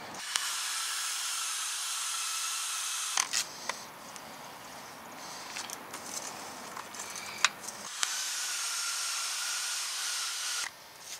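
Cordless drill spinning a wire brush wheel against a rusty brake caliper bracket, scrubbing off rust scale: two runs of about three seconds each, a steady high hiss. Between the runs come a few sharp clicks and knocks of the metal parts being handled.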